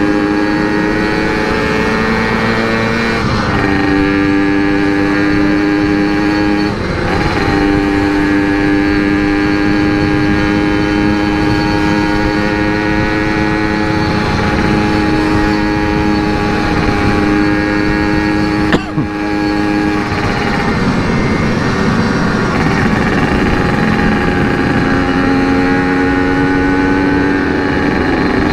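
Yamaha RX King's 135cc two-stroke single-cylinder engine through an aftermarket CRC series exhaust, running steadily under way. The note dips a couple of times early on, and about nineteen seconds in there is a sharp click, after which the revs fall and slowly climb again.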